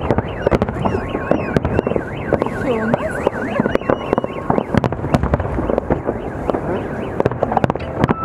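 Aerial fireworks display: a rapid, irregular run of bangs and crackling shell bursts. For the first three seconds a high siren-like wail rises and falls about three times a second.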